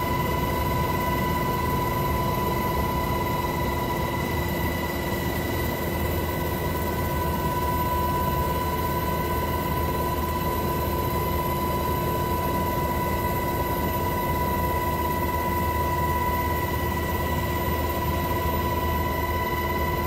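Helicopter in flight, heard from inside a helicopter's cabin: a steady low rotor and engine rumble with a steady high turbine whine over it.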